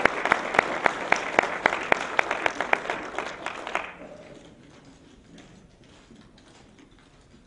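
Audience applause with steady rhythmic clapping, about four claps a second, dying away about four seconds in. Faint scattered clicks follow in the quiet.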